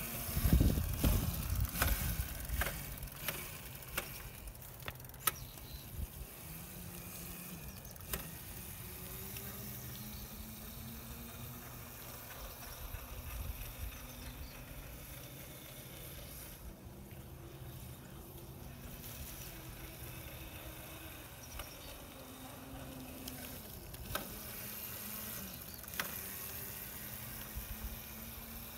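Wind buffeting the microphone for the first two seconds or so, with several sharp clicks. After that comes a steady faint outdoor hiss with a faint hum that rises and falls.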